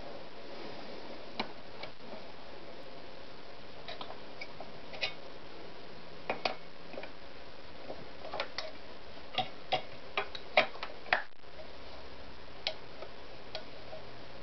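Irregular clicks and light knocks from a Victoria 128 FE sewing machine being handled, over a steady hiss. There are about a dozen, bunched most closely around ten seconds in.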